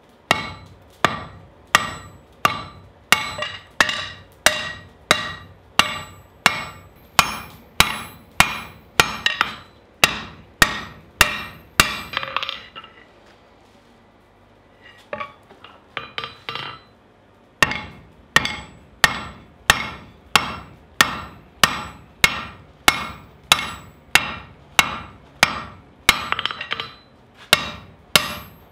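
Blacksmith's hand hammer forging a red-hot steel bar on an anvil, at about two blows a second, each blow with a short metallic ring. The hammering pauses for about three seconds near the middle, then picks up again.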